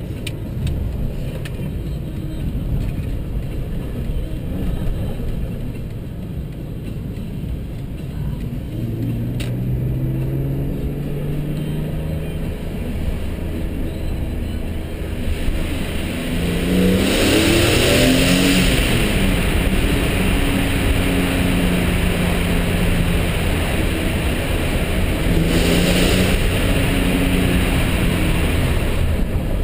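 BMW E46 M3's straight-six engine with its standard exhaust, heard from inside the car as it accelerates hard. The revs climb several times, loudest about 17 s in and again about 26 s in, with the pitch falling at each gear change.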